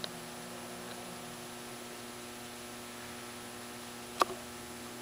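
A steady low electrical hum with hiss, and one sharp click about four seconds in.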